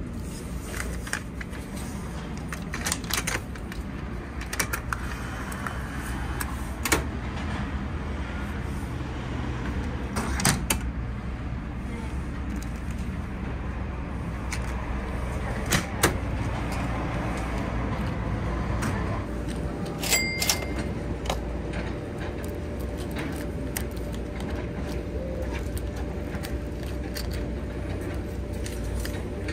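Clicks and clunks from a coin-operated compartment vending machine as money goes in and a small glass door unlatches, plus handling of a small cardboard candy box, over a steady low rumble. A faint steady hum comes in about two-thirds of the way through.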